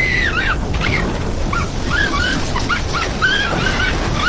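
A dog whining in a quick series of short, high-pitched, arching whimpers, over a steady background hiss.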